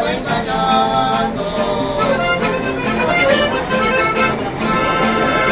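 Accordion playing a tune over a steady alternating two-note bass.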